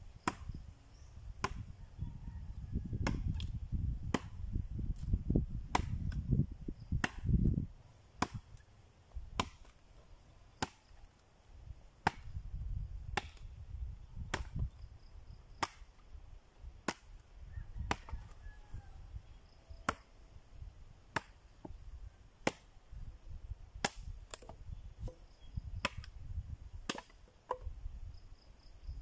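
Machete chopping into a wood branch, sharp single strikes repeating at an even pace of about one every second and a quarter, with a low rumble under the first several seconds.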